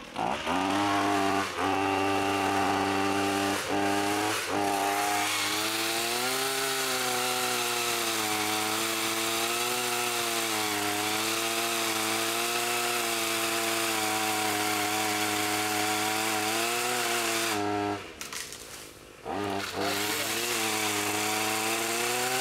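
Powered pole saw running as it cuts into a tree limb overhead, its pitch wavering as the chain bites. It cuts out for about a second near the three-quarter mark, then runs again.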